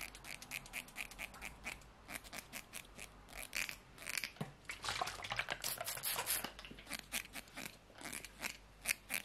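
White plastic comb stroked close to the microphone: a run of short crisp clicks from its teeth, several a second, with longer brushing hiss about five to six seconds in.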